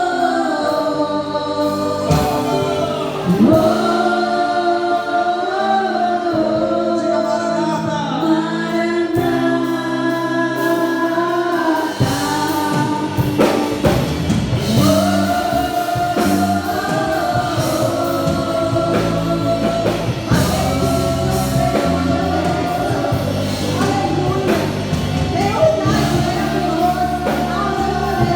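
Worship band and singers performing a gospel praise song: voices holding long notes over keyboard and bass, with drums joining about twelve seconds in.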